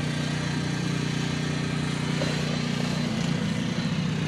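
An engine idling steadily, its pitch shifting slightly about three seconds in.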